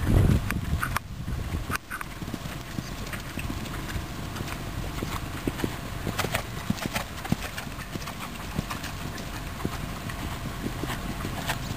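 Hoofbeats of several horses cantering on a dirt arena, a run of dull thuds as they pass the microphone. A low rumble on the microphone in the first second.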